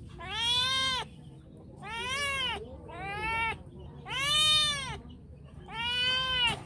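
Domestic cat meowing five times, about one call a second, each meow rising and falling in pitch: insistent meows asking to play.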